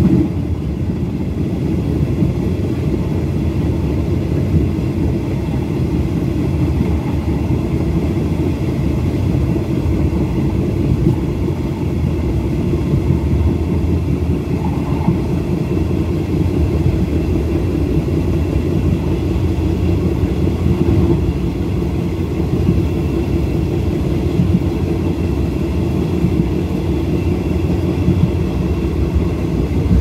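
Passenger train running on the track, heard from aboard: a steady rumble of wheels on the rails that does not let up.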